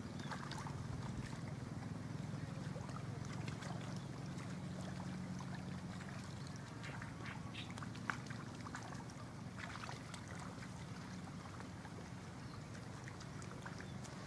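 Steady low hum of a distant motor, with faint scattered short chirps over it.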